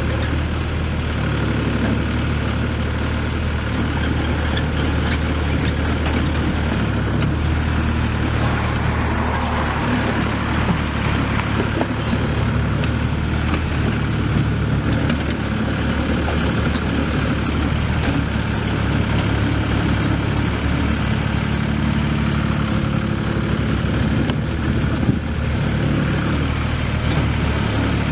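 Yanmar four-cylinder diesel engine of a 4-ton mini crawler excavator running steadily, its low note shifting slightly now and then.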